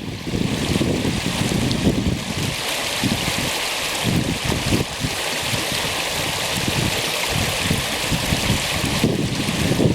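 Spring creek running, water rushing steadily over its bed, with wind buffeting the microphone in irregular gusts.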